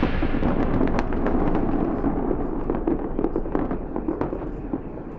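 Aerial fireworks crackling and popping densely: many sharp cracks over a low rumble, slowly fading.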